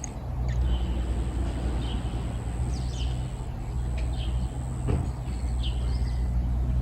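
Short falling bird chirps, repeated every second or so, over a steady low hum and a thin, steady high-pitched tone.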